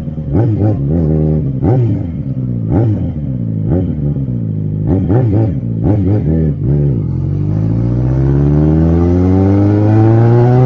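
Yamaha XJ6's 600 cc inline-four engine revved in a series of quick throttle blips, each rising and dropping in pitch. From about seven seconds in, the revs climb in one long steady rise.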